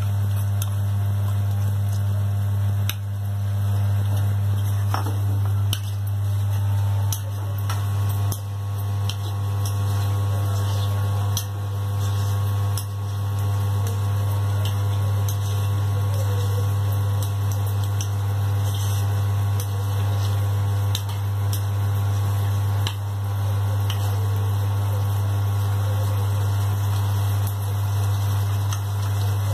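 A loud steady low electrical hum throughout, with scattered sharp clicks of a plastic spoon knocking and scraping against the wok as the thickening gravy is stirred.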